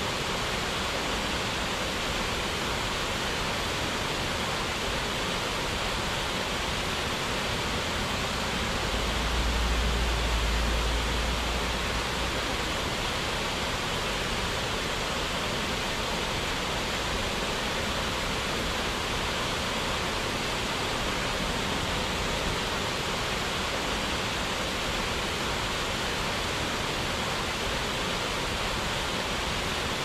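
Steady rush of falling water, an even hiss with no change in level. A brief low rumble rises over it about ten seconds in.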